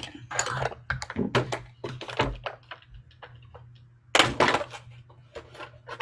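Clear plastic packaging tray crinkling and crackling in quick irregular snaps as an action figure is worked out of it, with a louder burst of crackling about four seconds in.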